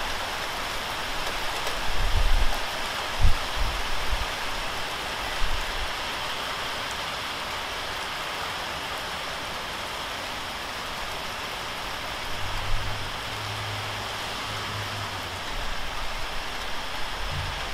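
Steady rain shower falling, a constant even hiss of rain on pavement and parked cars. A few brief low thumps and rumbles sit underneath, a couple of seconds in and again near the end, with a low hum for a few seconds past the middle.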